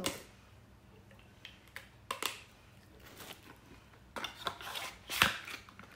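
Small items and packaging being handled in an open cardboard box: scattered light clicks and rustles, busier in the last two seconds, with one sharper knock about five seconds in.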